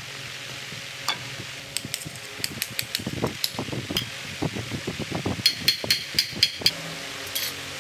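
Hammer striking steel gearbox parts, tapping a splined gear shaft down into a clutch drum: a quick run of about seven sharp, ringing metallic strikes about five and a half seconds in, after several seconds of scattered clinks and knocks of steel parts being handled and seated.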